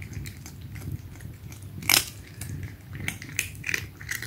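Cats crunching Dreamies Delectable Duck dry cat treats: a steady run of small crunches and clicks, with one louder click about two seconds in.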